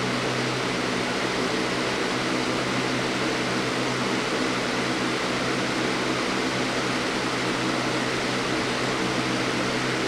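Lasko 3733 20-inch box fan running on its low speed setting: a steady rush of moving air with a low, even motor hum underneath.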